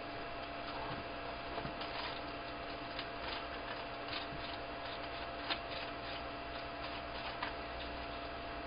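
Irregular light clicks and scratches on a hand-held plastic cup of dubia roaches as a bearded dragon climbs onto its rim and feeds, the sharpest click about five and a half seconds in. A steady electrical hum runs underneath.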